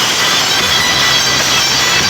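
Very loud music from a carnival sound-system rig of stacked loudspeakers, recorded so close that it comes through as a dense, distorted wash with no clear beat.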